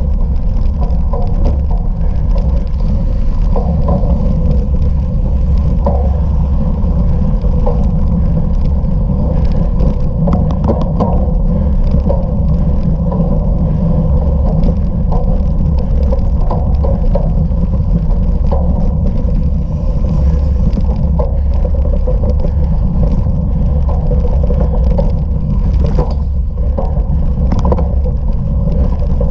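A bicycle being ridden fast over rough off-road ground: a steady rumble of wind on the microphone and tyres on the surface, with short rattles and knocks from the bike now and then.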